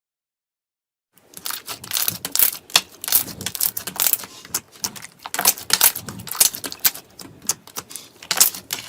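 Slime being squished and poked by hand, a dense run of crackling clicks and pops that starts about a second in, after silence.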